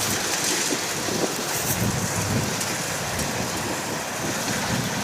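Kubota DC60 combine harvester running steadily while harvesting rice: a continuous, even machine noise with no distinct engine tone.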